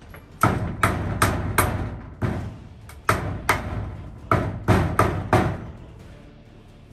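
Claw hammer driving nails into wooden framing overhead. There are about eleven sharp blows in quick runs, each with a short metallic ring, and they stop about two-thirds of the way through.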